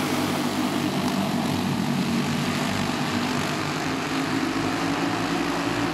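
A pack of dirt karts with Briggs & Stratton Animal four-stroke single-cylinder engines running together, a steady blended drone of many engines.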